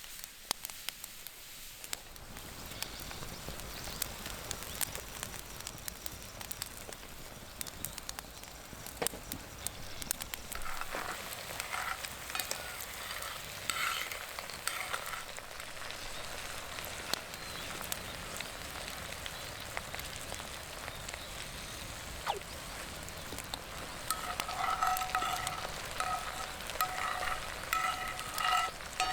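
Food sizzling in an iron frying pan over a wood fire, with sharp crackles and pops throughout; the sizzle strengthens about two seconds in. Short, repeated high chirping notes come in around the middle and again near the end.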